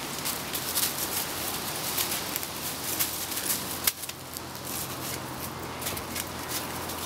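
Footsteps crunching and rustling through dry fallen leaves and twigs, in an irregular run of sharp crackles with one louder snap a little before the middle.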